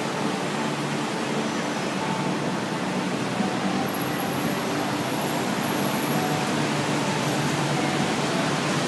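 Steady road and traffic noise heard from a moving vehicle: an even hiss with no distinct events.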